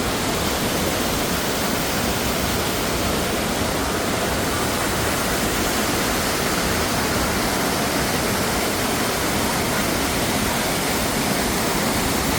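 Waterfall in high spring flow: a dense, steady rush of falling water over rocks.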